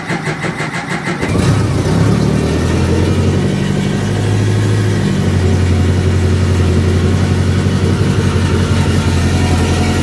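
BMW K1100 inline-four engine cranked by its starter and catching after about a second of quick cranking, then settling into a steady idle.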